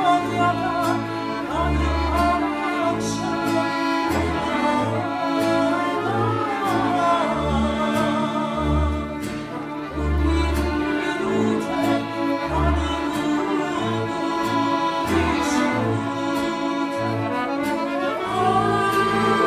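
A folk orchestra plays a slow sevdalinka: violins carry the gliding melody with flute and clarinet, over accordions and separate low double-bass notes.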